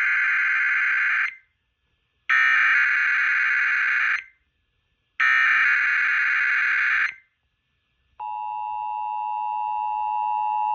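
Emergency Alert System SAME header played over an FM radio broadcast: three identical bursts of shrill digital data tones, each about two seconds long and a second apart. About eight seconds in, the steady two-tone EAS attention signal begins and holds, announcing the start of the North Carolina tornado drill / required monthly test alert.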